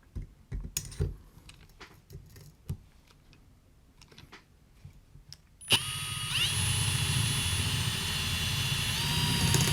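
A few faint handling knocks, then about six seconds in a handheld electric drill starts and runs steadily with a whine, drilling a small hole; its pitch steps up slightly near the end.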